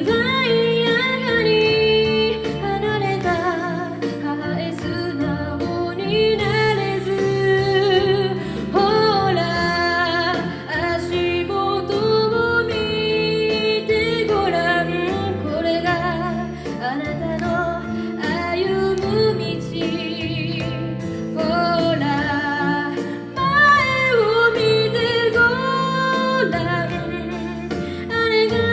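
A song playing: a sung melody with vibrato over steady instrumental accompaniment.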